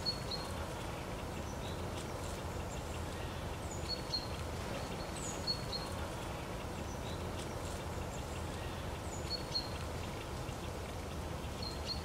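Short, high call notes of small songbirds, likely tits, coming singly or in quick pairs every few seconds over a steady low background hum.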